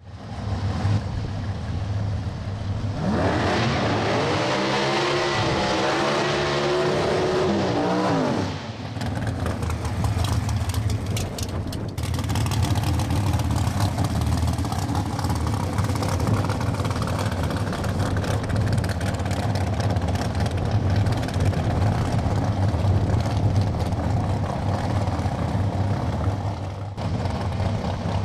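Front-engine dragster's open-header V8 running, revved up and down several times in the first part, then running on at a rough, crackling, lumpy idle.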